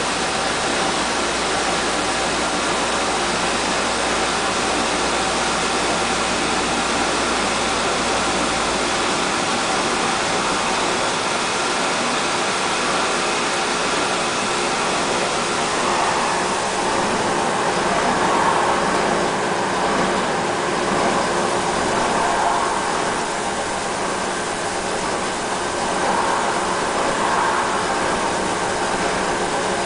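Coin-operated rice milling machine running in the last seconds of its milling cycle: a loud, steady mechanical whir with a rushing hiss. A low hum under it drops out about nine seconds in.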